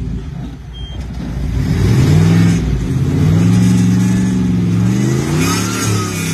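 Jeep Wrangler's engine revving under load as it crawls up a steep rock ledge. The revs climb about a second and a half in, ease briefly, hold high, then rise once more and drop near the end.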